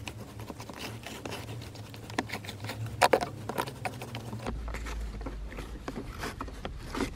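Sticky cleaning gel pressed and worked by hand into a plastic car console pocket: soft irregular clicks and scrapes of fingers and gel against the plastic, with a sharper pair of clicks about three seconds in, over a low steady hum.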